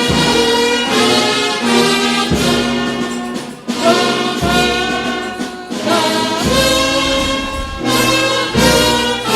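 Instrumental music led by brass, playing held chords that change about once a second.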